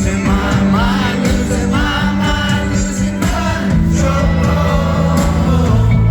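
Live rock band playing at full volume: steady bass, guitars and drums under a lead singer's wavering melody.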